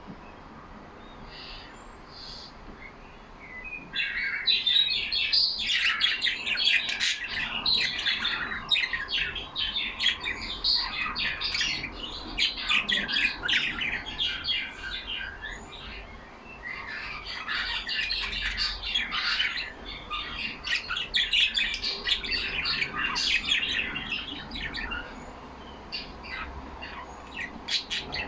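A flock of pet budgerigars chattering, with a dense run of chirps, warbles and squawks. It is faint for the first few seconds, swells about four seconds in, dips briefly midway and then carries on.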